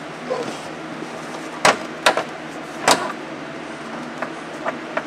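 Sharp hard-plastic knocks and clicks from Ford Crown Victoria dashboard trim being handled: three loud knocks in the middle, then three lighter clicks near the end, over a steady hum.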